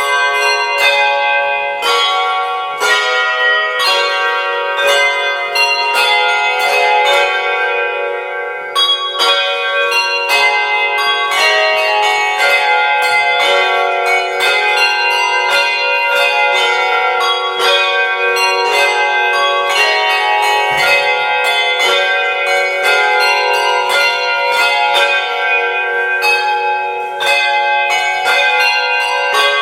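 Handbells playing a carol tune: a steady stream of bell strikes, single notes and chords ringing on and overlapping one another.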